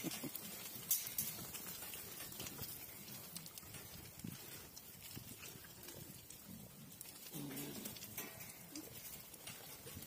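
Sheep bleating faintly here and there, with one clearer bleat a little past seven seconds in. A sharp knock about a second in is the loudest sound.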